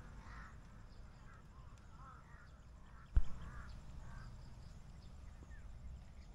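Crows cawing, a string of short calls coming thick for the first four seconds and then thinning out. A single sharp thump about three seconds in is the loudest sound.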